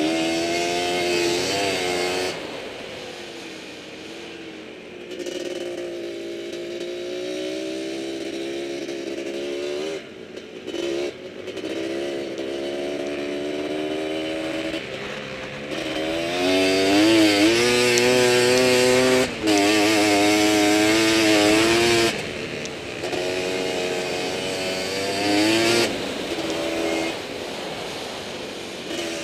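Quad (ATV) engine running under load, its pitch rising and falling as the throttle is worked, with brief drops when the throttle is lifted. It is loudest about two-thirds of the way through.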